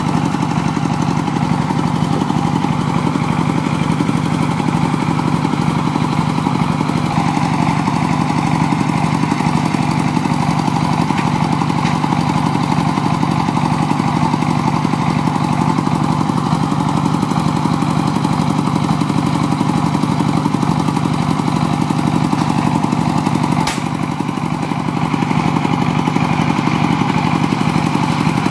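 Single-cylinder diesel engine of a trailer-mounted sawmill running steadily under load, driving the circular saw as it cuts through logs.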